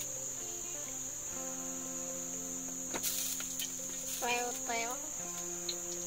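Insects chirring in a steady high-pitched drone. A click comes about three seconds in and a short burst of voice about four seconds in.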